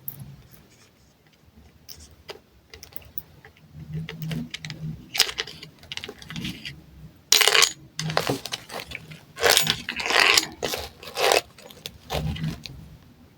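Small metal nail drill bits clinking and rattling as they are handled and taken from their holder: a run of light clicks and jingles, busiest in the second half.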